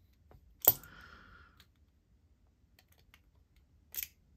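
Steel locking pliers clicking against the metal pocket-clip fastener of a folding knife as it is worked loose: one sharp click well under a second in with a faint rustle after it, then another sharp click near the end.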